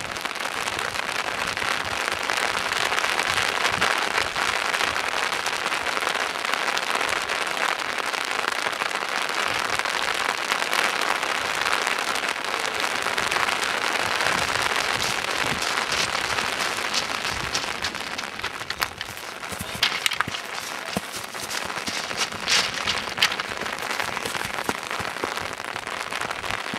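Loose scree stones crunching and rattling under fell runners' feet as they run and slide down a scree slope, with sharper clatters of stone in the last third.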